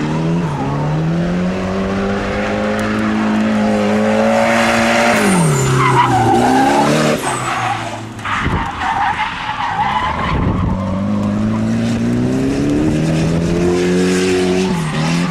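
Nissan 240SX (S13) engine held at high revs while drifting, with the rear tyres skidding and squealing. The revs fall away sharply about five seconds in, dip briefly around eight seconds, then climb and hold again before dropping near the end.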